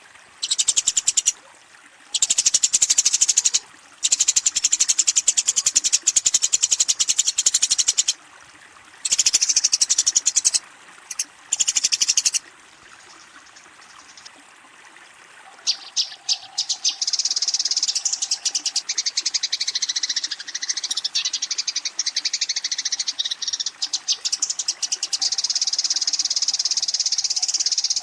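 Eurasian tree sparrows giving fast, harsh chattering calls, the agitated fighting chatter used to challenge a rival. The chatter comes in bouts of a few seconds with short breaks, pauses for about three seconds around the middle, then runs on unbroken.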